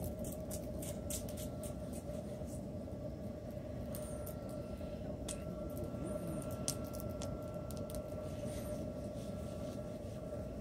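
Firewood fire crackling, with irregular sharp pops and ticks over a steady low rush of noise.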